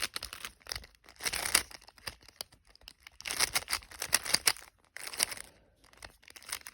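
A Rubik's cube being twisted quickly to scramble it, its plastic layers clicking and rattling in rapid bursts with short pauses between them.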